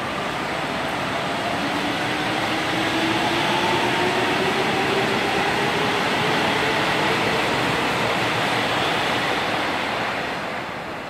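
Busan Metro Line 1 train departing: a broad rumble of wheels on rails with electric traction motor whines that climb steadily in pitch as it gathers speed. The sound fades near the end as the last cars pass.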